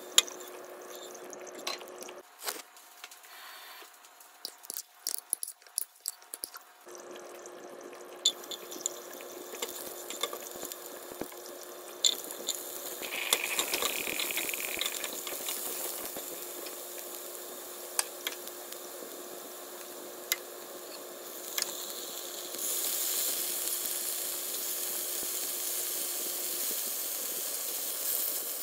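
Food frying in a nonstick pan, with sharp taps and scrapes of a silicone spatula as chopped onion is stirred in hot oil. In the last several seconds a louder, steady sizzle sets in as marinated chicken pieces fry.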